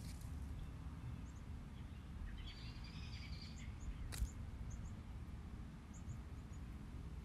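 Quiet outdoor ambience with a low steady rumble and faint, scattered bird chirps. Cherry-tree leaves rustle briefly, then comes a single sharp snap about four seconds in as a cherry is picked off the branch.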